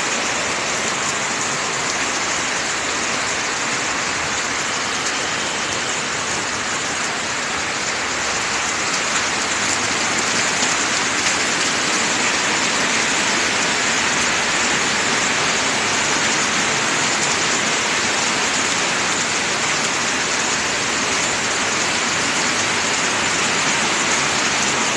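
Heavy tropical-storm rain pouring steadily and splashing onto floodwater.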